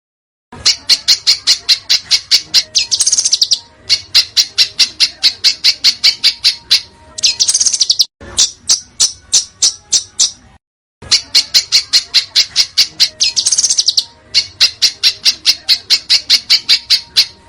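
Songbird recording for masteran tutoring: rapid, dense volleys of sharp, high chip notes, about seven a second, broken every few seconds by a harsher, scratchier burst. It pauses briefly about eight and about ten and a half seconds in.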